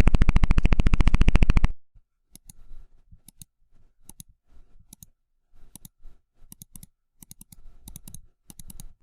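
An electronic oscillator buzz, a rapid even pulsing, cuts off about two seconds in. It is followed by a computer mouse clicking about a dozen times, mostly in quick press-and-release pairs.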